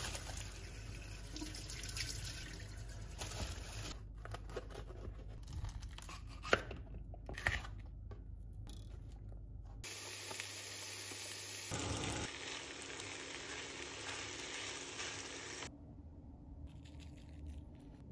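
Kitchen food preparation: a knife cutting a red pepper on a plastic chopping board, with a couple of sharp knocks, then leftovers sizzling steadily in a frying pan for about six seconds before the sound cuts off.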